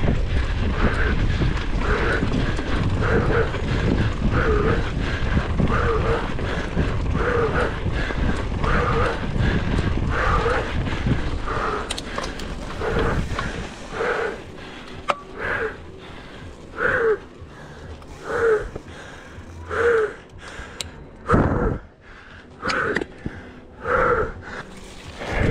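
A mountain-bike rider panting hard after a race stage, about one heavy breath every second and a half. For roughly the first half, wind noise rushes over the microphone. It falls away about halfway through, leaving the panting on its own.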